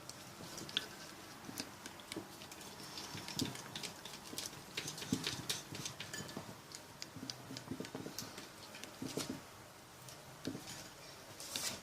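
Glue-based slime mix being worked by hand as hair conditioner goes in: soft, irregular sticky clicks, ticks and light taps.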